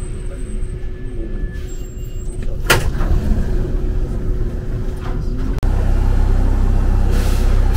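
Paris Métro train running with a steady low rumble and a single sharp clack about two and a half seconds in. About five and a half seconds in, the sound cuts abruptly to a louder, steady low drone.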